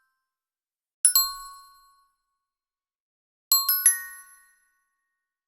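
Two 'correct answer' chime sound effects, each a bright bell-like ding. The first is a quick two-note ding about a second in. The second, about three and a half seconds in, is a fast run of notes ending on a higher one. Each rings out and fades within about a second.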